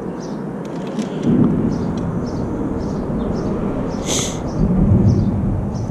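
Wind buffeting the microphone in uneven low rumbles, swelling twice, with a brief hiss about four seconds in.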